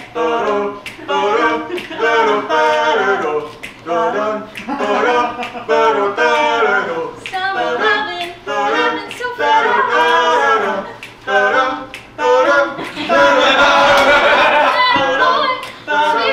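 Unaccompanied a cappella singing by a small vocal group, in short phrases about a second long, fuller and held near the end.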